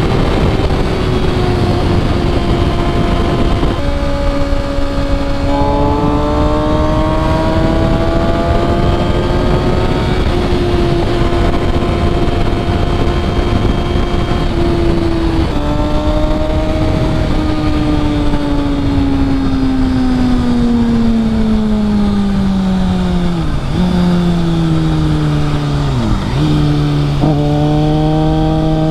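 2007 Kawasaki ZX6R inline-four engine with an MJS Performance header and cat delete, running hard under way: its pitch steps up and down with gear changes, then falls steadily through the second half as the bike slows, with two brief sharp dips near the end before settling at a steady note.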